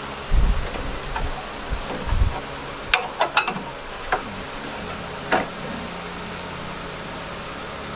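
Sheet-metal repair pieces being handled and fitted: two dull thumps, then a quick run of sharp clicks and taps, over a steady fan-like hum.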